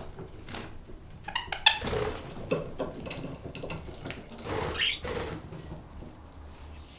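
Budgies chattering and squeaking amid a run of sharp clicks and clattering knocks, over a low steady hum.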